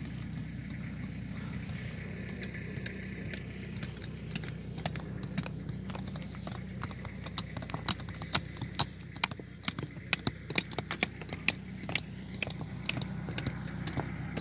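Quarry workers' hand tools knocking and chipping at blocks of talc (soapstone): a run of sharp, irregular taps and clicks that starts a few seconds in and comes thickest in the second half, over a low steady hum.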